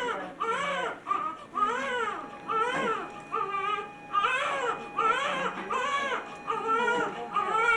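Newborn baby crying in a run of short rising-and-falling wails, about two a second: a hungry cry from a baby rooting for food.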